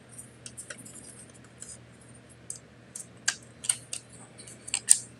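Small clicks and scrapes of a laptop hard drive being fitted into a laptop drive caddy. Sharper clicks come in the second half, the loudest near the end.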